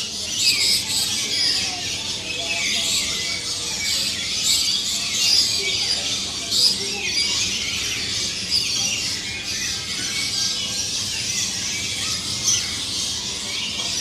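A flock of lorikeets chattering and screeching, with many high-pitched calls overlapping without a break.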